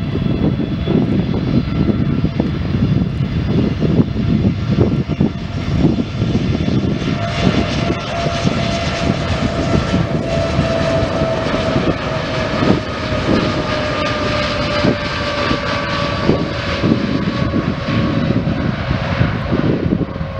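Boeing 787 Dreamliner's jet engines running loud and close, a heavy rumble with a whine over it that grows stronger partway through and then slowly falls in pitch.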